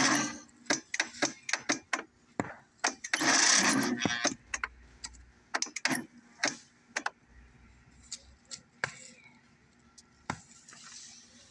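Electric starter on a Briggs and Stratton mower engine clicking and giving a short whirr about three seconds in, without cranking the engine over: the charger powering it is too weak to turn the engine against compression.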